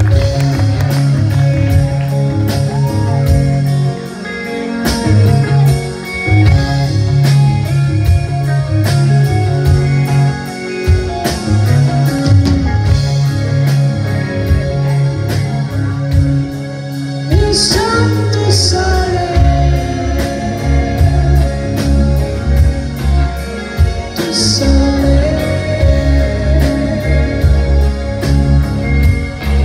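Live progressive rock band playing: bass guitar, electric guitar, drums and keyboards, with singing over them. Amplified concert sound, loud and continuous.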